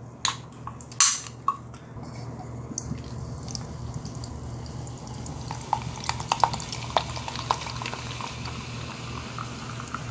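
Aluminium cola can opened with two sharp hissing cracks near the start, then the cola is poured into a plastic cup, with a steady fizz and many small pops of bubbles.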